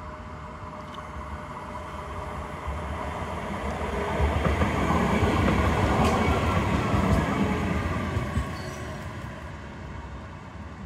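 Croydon Tramlink tram passing close by on the adjacent track. The rumble and rail noise build to a peak about halfway through, then fade as it moves away, with a whine that falls in pitch as it goes.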